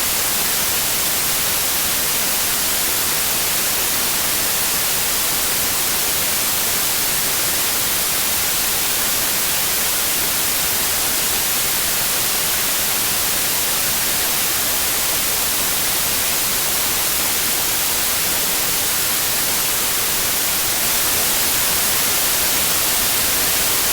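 Steady generated noise for relaxation, an unchanging hiss heaviest in the high end, with a slight rise in level about 21 seconds in.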